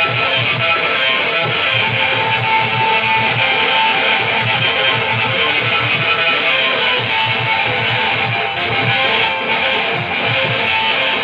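Loud live stage music for a Koraputia Desia folk dance: a steady drum beat of several strokes a second under a plucked-string melody.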